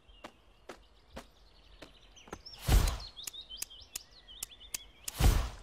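Cartoon outdoor sound effects: light footsteps tapping about twice a second, with small birds chirping from about halfway through. Two short, much louder thumps stand out, one near the middle and one near the end.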